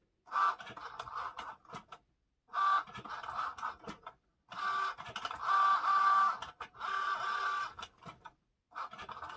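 Cricut Joy cutting machine cutting vinyl, its motors whirring in about five short start-stop bursts with brief pauses between them. Each burst carries a steady whine.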